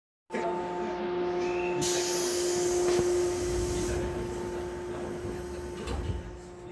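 Air-operated sliding doors of a JR Kyushu 415-series EMU closing at a station stop: a hiss of air about two seconds in, then a thud near the end as the doors shut. Under it runs a steady hum from the standing train.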